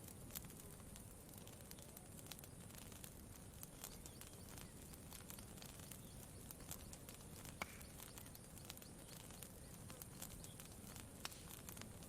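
Campfire crackling faintly: scattered small pops and snaps, one a little sharper about halfway through, over a low steady rumble.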